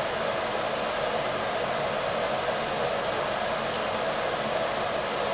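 A fan running steadily, an even, unchanging whoosh.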